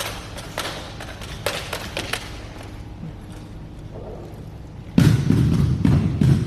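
Drill rifles being slapped, spun and struck in a rifle drill routine: a run of sharp, irregular knocks and slaps. About five seconds in, a much louder low rumble starts suddenly and goes on.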